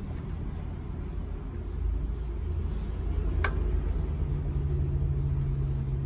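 Low rumble of an engine running nearby, swelling slightly about two seconds in, with a steady low hum joining about four seconds in. A single light click sounds midway.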